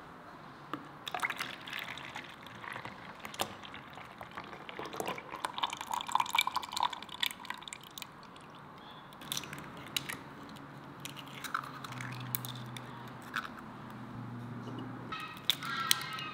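Milky liquid poured from a clay jug into a mixing bowl, splashing and dripping, with a few light knocks of the jug and bowl.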